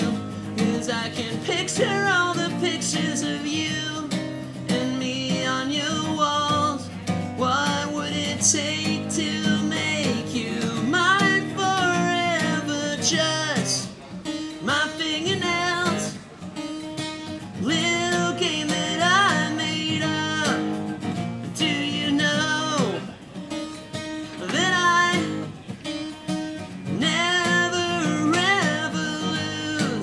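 Acoustic guitar strummed with a man singing over it: a live solo song.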